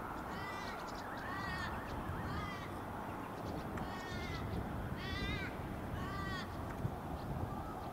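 An animal calling repeatedly: about six drawn-out, wavering calls, roughly one a second, over a steady low background noise.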